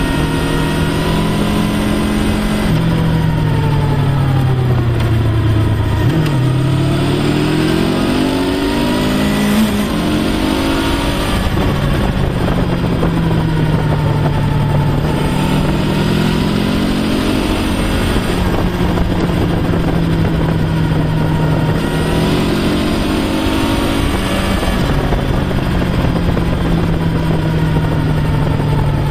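Honda VFR800X Crossrunner's V4 engine heard from on board, its note climbing and falling again and again as the throttle is opened and closed through the bends, over a steady rush of wind and road noise.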